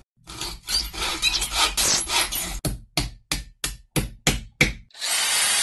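A hand tool scraping back and forth across wood, first in quick overlapping strokes and then in about seven distinct strokes, roughly three a second. A steady hiss starts near the end.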